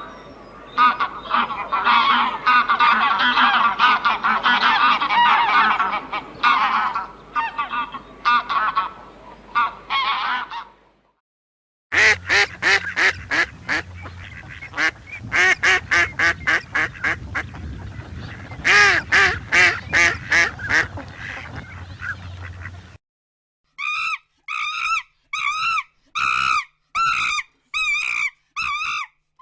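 Geese honking: a flock calling in a dense, overlapping chorus, cutting off at about 11 s, then a second run of honking after a short break, and near the end a string of separate single honks about two a second.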